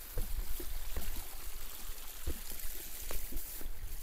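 Water trickling, with a few soft, irregular knocks and a low rumble underneath.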